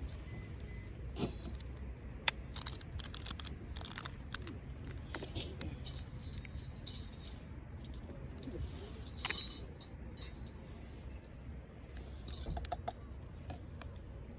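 Light metallic clinking and jingling of small metal objects being handled, a run of short taps, with one sharp knock about two seconds in and a brief ringing clink about nine seconds in.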